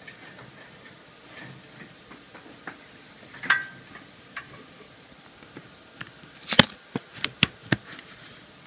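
Clicks and knocks of a micro-USB cable being plugged into a Samsung Galaxy S2 phone and the phone being handled. There are scattered light taps, one sharper click about three and a half seconds in, and a quick run of about five sharp clicks near the end.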